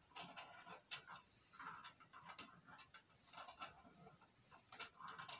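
Small clicks, taps and scrapes of metal parts on a CO2 laser's mirror mount, irregular, as its retaining ring is twisted loose, with the soft rustle of gloved hands handling it.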